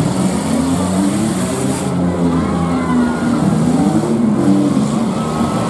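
Demolition derby cars' six-cylinder engines revving and running together, their pitch rising and falling as the cars manoeuvre, with higher whines over the top.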